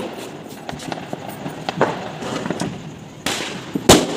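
Small firecrackers bursting in sharp, separate bangs: a few lighter cracks, then two loud bangs near the end, the last the loudest.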